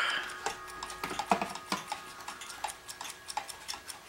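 Several mechanical clocks ticking out of step with one another, a few ticks a second in an uneven mixed rhythm.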